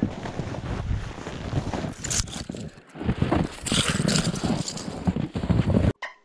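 Irregular scraping and crunching of snow as someone moves through deep snow, with wind buffeting the camera microphone. It stops abruptly near the end.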